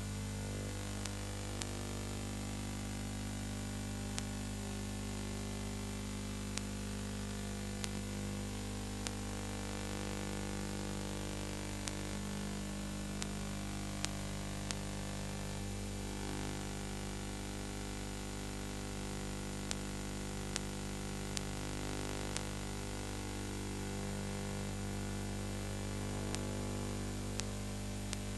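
Steady electrical hum with many overtones under a layer of hiss, with faint scattered clicks about once a second. This is the empty noise of a silent film's transfer, not sound from the scene.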